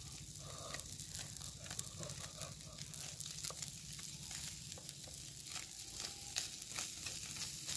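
Fish frying in hot oil in a pan over a wood fire, a steady sizzle with many irregular pops and crackles, while the pieces are turned in the pan.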